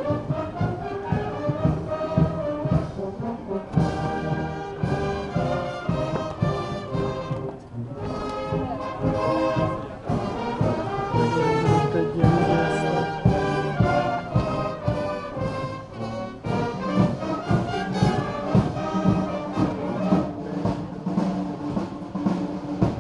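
Brass band music playing throughout, with a melody over a steady beat.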